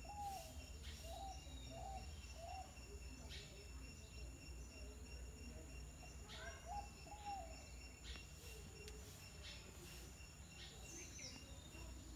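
Faint outdoor ambience: a steady high-pitched insect drone, with short chirping calls repeated several times at the start and again about halfway through, over a low rumble.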